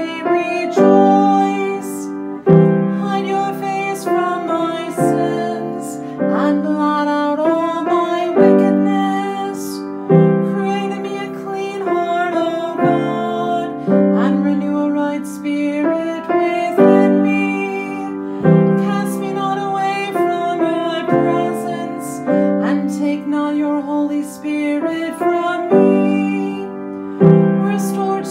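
Psalm sung to a chant tone with piano accompaniment. The chords change every second or two.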